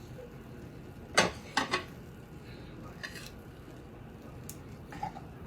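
A metal kitchen utensil clinking and knocking against cookware while dishing up food: a sharp clatter about a second in, two more close behind it, then lighter taps later.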